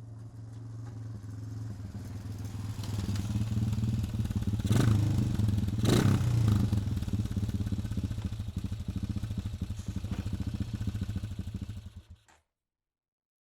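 Quad bike engine running as it drives by, growing louder to a peak about halfway through, with two sharp knocks near the peak, then fading away. The sound cuts off suddenly near the end.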